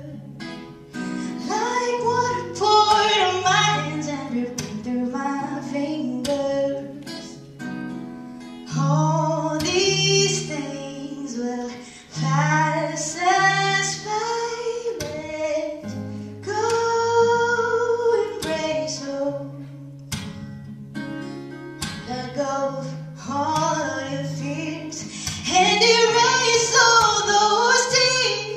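A woman singing a melody while accompanying herself on an acoustic guitar.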